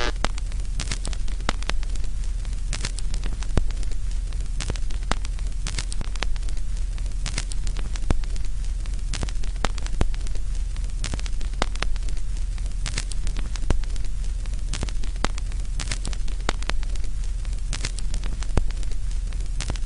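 Crackling static: scattered clicks and pops, about one or two a second, over a steady hiss and a low hum, like worn record or old film surface noise.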